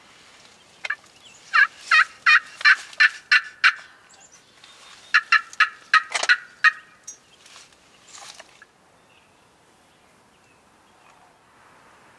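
Turkey yelping: a run of about eight evenly spaced yelps, roughly three a second, then after a short pause a second, quicker run.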